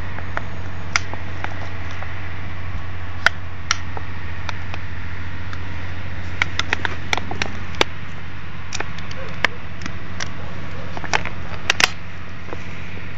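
A steady low hum, with scattered light clicks and taps from a pet at play, several in quick succession about halfway through and a close cluster near the end.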